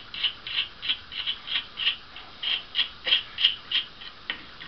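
A steel nut being spun by hand down a threaded rod gives a run of short, high squeaks, about three a second, one with each turn. The squeaks stop near the end, and a light metallic click follows.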